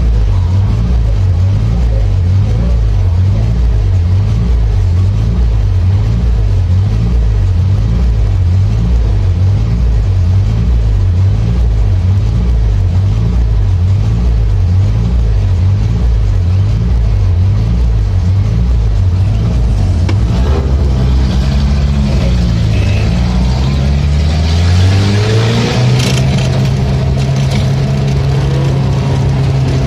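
Race car engine running, its revs rising and falling in a quick steady rhythm, then climbing about two-thirds of the way through and holding at a higher, steady pitch.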